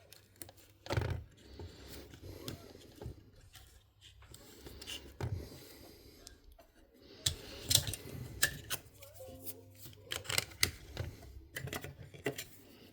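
Irregular small clicks and taps of hands and tools working on a Sony MZ-R3 MiniDisc recorder's casing and parts as it is fitted back together, coming more often in the second half.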